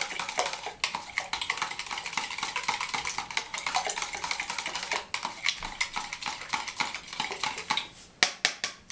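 A metal utensil beating eggs, oil and liquid in a plastic measuring jug: rapid, continuous clicking and scraping against the jug's sides. A few louder separate taps near the end.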